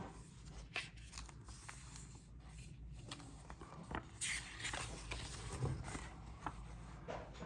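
Scattered light clicks, taps and a short rustle about four seconds in: the iPad mini's box and its contents being handled and taken apart by hand.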